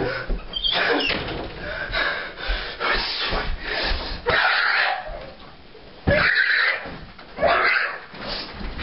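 A teenage boy screaming and yelling in a rage in repeated loud outbursts, with thumps as he throws himself onto the bed and thrashes in the bedding.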